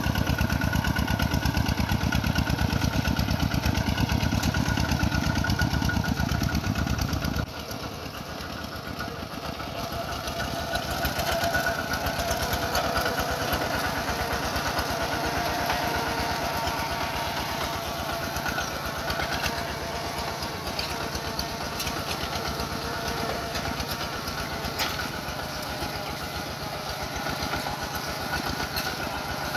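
Kubota two-wheel walking tractor's single-cylinder diesel engine running steadily under load, pulling a disc plough through wet paddy mud. It is louder and heavier for the first seven seconds or so, then drops suddenly and runs on lighter.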